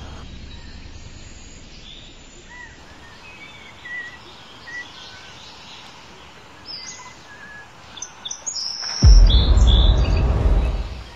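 Birds chirping, with short scattered calls over a faint outdoor hiss. About nine seconds in, a sudden loud, deep rushing noise starts and lasts about two seconds before fading.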